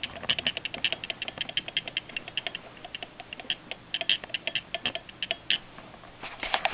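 Railroad telegraph sounder clicking out Morse code in quick, irregular groups of clicks, with a short pause about five and a half seconds in.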